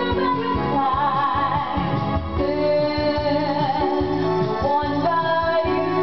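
A woman singing a slow pop ballad into a corded microphone over a karaoke-style backing track of keyboard and a steady beat, her voice held on long notes with vibrato.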